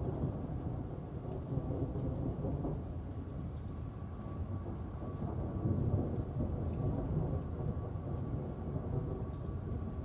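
Thunder rolling in a low, continuous rumble that swells about halfway through, over steady rain with scattered drop ticks. A faint steady tone runs underneath.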